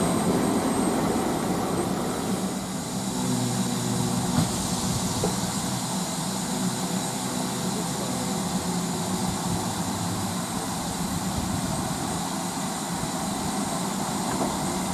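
A train running: a steady rumble and rushing noise, with a faint hum that comes in about three seconds in and fades a few seconds later.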